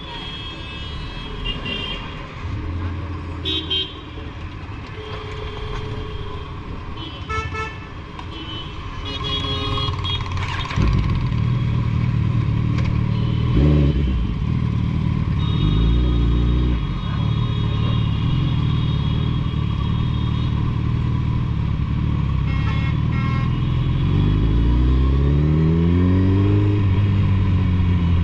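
Traffic horns tooting in short blasts through the first ten seconds. From about eleven seconds in, a Suzuki Hayabusa's inline-four engine with a Two Brothers Racing exhaust runs louder, and it revs up in a rising pitch near the end.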